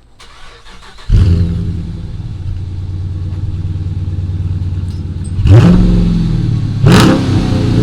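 Dodge Charger R/T's 5.7-litre Hemi V8, with a newly fitted cold air intake, starting about a second in with a loud flare and settling into a steady idle. Near the end the throttle is blipped twice, the engine revving up briefly and dropping back each time.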